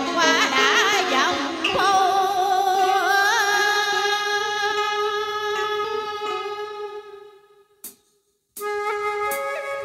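A woman singing a Vietnamese tân cổ song into a microphone, her voice wavering with vibrato over instrumental backing music. The sound fades out about seven seconds in, and after a moment of silence the backing music starts again.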